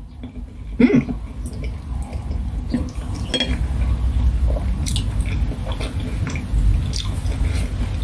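A person chewing a mouthful of chewy rice-paper tteokbokki rolls with the mouth closed, with a low steady mouth noise and scattered small wet clicks.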